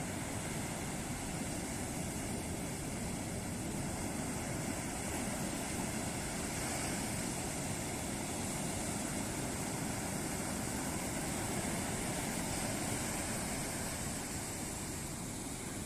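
Ocean surf breaking and washing on a beach: a continuous rush of waves that swells slightly louder around the middle.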